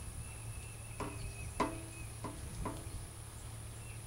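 Steady high insect chirring over a low hum. Between about one and three seconds in come four short pitched calls, the second the loudest.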